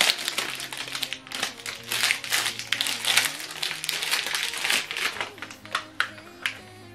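Crinkling of a thin plastic bag as a remote control is handled and pulled out of it, a rapid irregular crackle with some taps, over soft background music.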